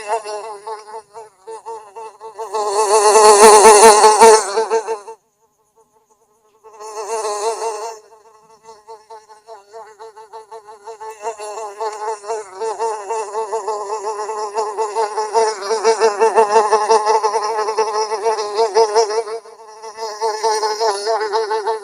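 Houseflies buzzing, a steady buzz that swells and fades. It cuts out for about a second and a half some five seconds in.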